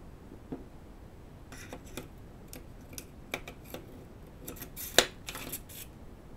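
Light metallic clicks and clinks from a mini flexible magnetic-base dial indicator holder as it is handled and set up, irregular and scattered, with one sharp click about five seconds in.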